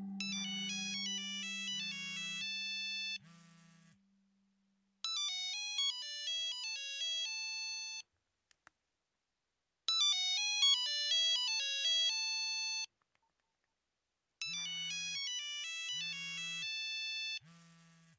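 Mobile phone ringtone: a bright electronic melody that plays in four bursts of about three seconds, with about two seconds of silence between them. A low buzz pulses under the first and last bursts.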